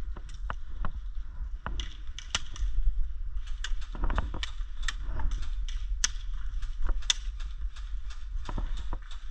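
Sharp clicks and knocks, roughly two a second and unevenly spaced, over a steady low rumble.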